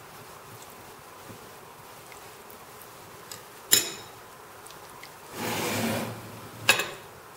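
A steel spoon clinks sharply twice against a ceramic bowl while chicken is turned in a thick wet marinade, with a brief scraping noise between the two clinks, over a steady faint background hiss.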